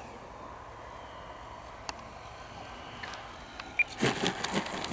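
Faint steady background, then about four seconds in a burst of rustling, knocking noise as the foam RC EDF jet touches down and slides on the grass on landing.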